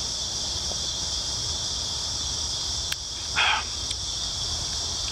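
Steady high-pitched chorus of insects, crickets by their sound, chirping continuously, with a single click a little before halfway and a short breathy puff just after it.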